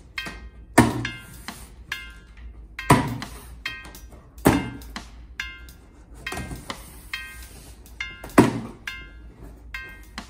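Background music of short plucked notes with a few sharp percussive hits a second or two apart.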